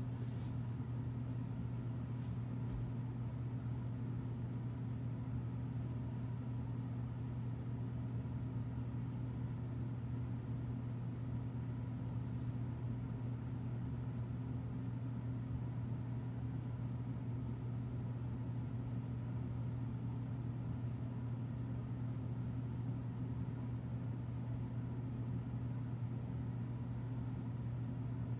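Steady low hum over a faint hiss, unchanging.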